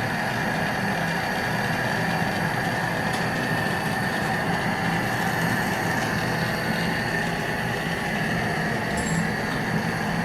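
Glassworking torch flame burning with a steady, unbroken rushing hiss over a low hum while a glass tube is heated.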